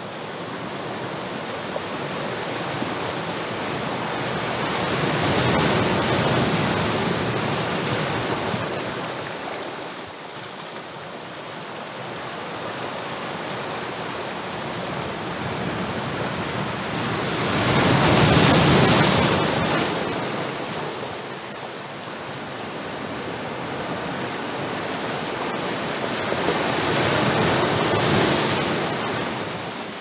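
Strong sea waves breaking and washing over a rocky shore, a continuous rushing surf that swells three times. The biggest surge comes a little past halfway, and a third builds near the end.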